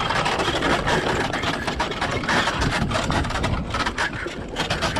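Metal carriage rattling and clattering as a pony tandem pulls it at speed over grass, a dense run of quick clicks and knocks over a low rumble.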